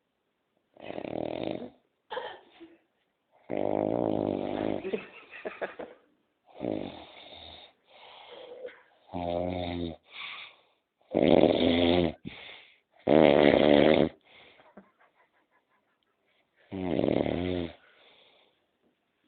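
Loud snoring: a run of about nine rasping, buzzing snores of a second or so each, separated by short silent breaths, with a longer pause a little after halfway.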